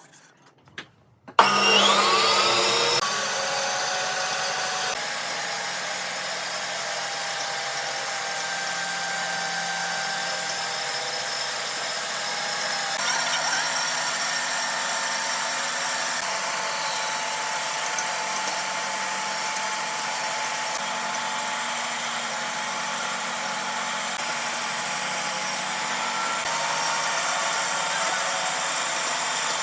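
An electric woodworking power tool starts up about a second and a half in and runs steadily with a high whine, in several back-to-back stretches of the same kind of machine noise.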